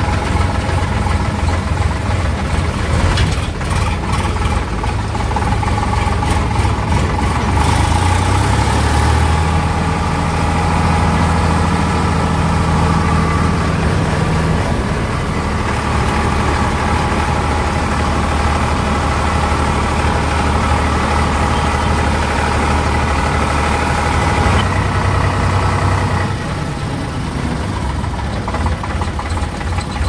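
Sonalika DI 47 RX tractor's diesel engine running steadily under way, heard from the driver's seat. The engine note steps up about a third of the way in and drops back near the end.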